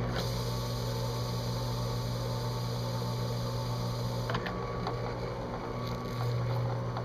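Drill press running steadily while its spinning abrasive tool grinds an engine-turned swirl into a metal dashboard insert. The grinding hiss stops with a click about four seconds in as the tool comes off the plate, and the motor hum carries on.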